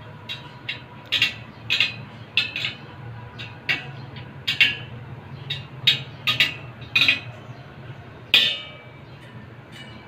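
Steel spokes of a Honda Winner motorbike wheel clinking as the wheel is re-spoked: about fifteen sharp, ringing metal clinks, irregularly spaced.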